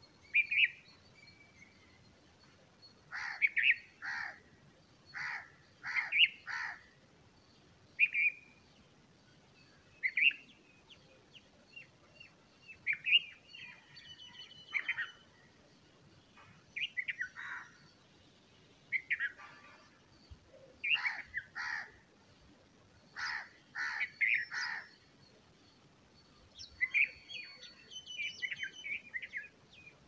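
Bulbul chirping: short, sharp call notes every second or two, often in pairs or quick clusters, with a brief run of rapid chattering near the end.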